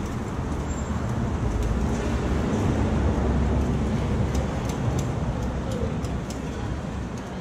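Low, steady rumble of street noise that swells around the middle, with a few light clicks of metal takoyaki picks against the grill.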